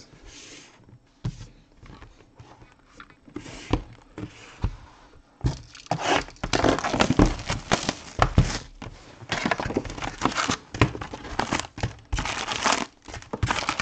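A few light taps and clicks, then, from about five seconds in, dense crinkling and rustling of foil trading-card packs being lifted out of a cardboard hobby box.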